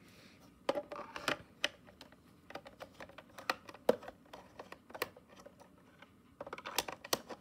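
Screwdriver turning screws in the case of a Soundesign cassette recorder: irregular small clicks and ticks of the metal tip on the screw heads and the housing.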